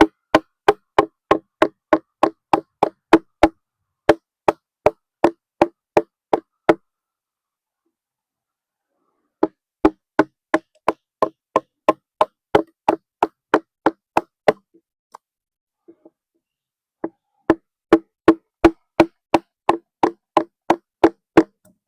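A chisel being driven into a log with steady, evenly spaced blows, about three a second, cutting a notch for a roundwood timber-frame joint. The blows come in three runs, stopping for a couple of seconds about a third of the way in and again about two-thirds of the way in.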